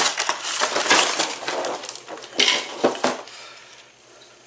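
Cardboard box being handled and moved, its crumpled packing paper and loose plastic parts rustling and crackling, fading after a second or so, then a few sharp knocks just before the three-second mark.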